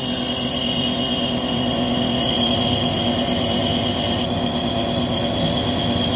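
A Ford F-450's V8 diesel running a belt-driven hydraulic pump under rising load, with a steady mechanical whine. About four to five seconds in, short high bird-like chirps begin, about two a second: the multi-grooved drive belt starting to slip over the pump's pulley at around 1,200 psi.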